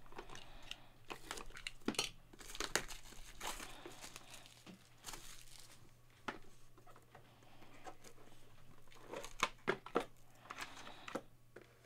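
Hands opening and handling small cardboard boxes: the packaging crinkling and tearing, with scattered light taps and scrapes of boxes on the table.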